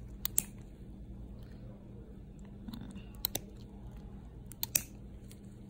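Stainless nail nippers cutting into a thick, fungus-infected toenail: three pairs of short, sharp snips, spaced a second or more apart.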